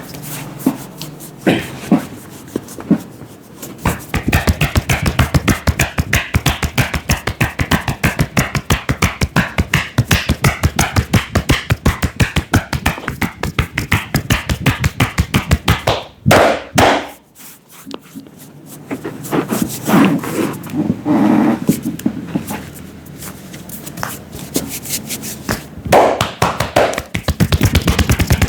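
Rapid hand strikes of an Indian head massage: hands tapping and slapping on the head in long, fast, even runs, with a short pause about two thirds of the way through.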